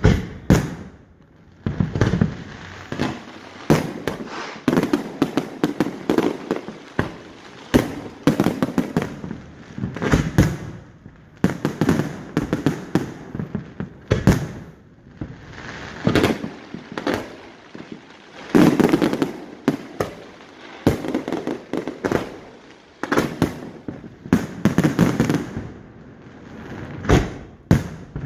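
Aerial fireworks going off in rapid, irregular volleys: many sharp bangs and booms one after another, each with a long echoing tail.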